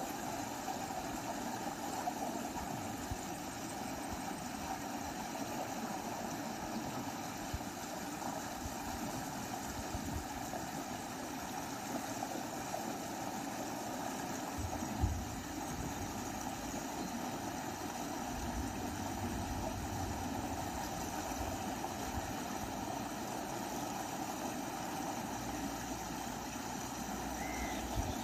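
Steady rush of flowing canal water, an even noise without pitch. A single low thump about halfway through.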